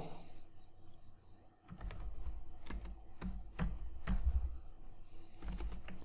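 Typing on a computer keyboard: irregular keystroke clicks, starting after a short lull in the first couple of seconds.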